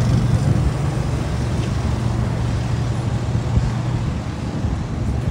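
City street traffic, with a heavy vehicle's engine running in a low, steady hum that fades out about four seconds in, over general road noise.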